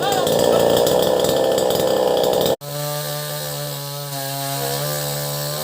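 Chainsaw cutting into wood at full speed, a dense, loud buzz. About two and a half seconds in the sound breaks off abruptly, and then the saw is heard running steadily with a lower, even drone.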